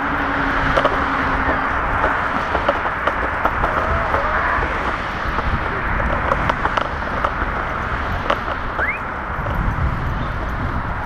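Steady rolling and rushing noise of a scooter moving along pavement while towed by a dog, with scattered small clicks and two short rising chirps near the end.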